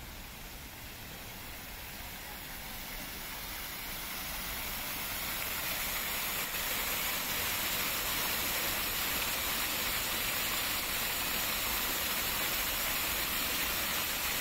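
Fountain jets spraying and splashing into a stone basin: a steady rush of falling water that grows louder over the first several seconds as it is approached, then holds steady.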